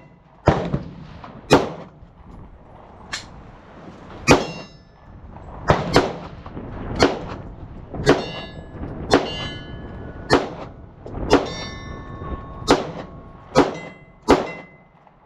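Handgun shots fired one after another, about one a second. Several are followed by a short metallic ringing, over a low steady rush of wind.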